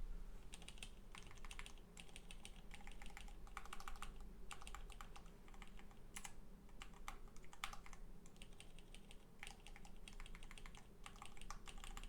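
Keys being pressed on a Cherry Xtrfy MX 3.1 mechanical keyboard with linear Cherry MX2A Red switches, in irregular runs of quick keystrokes with short pauses between them.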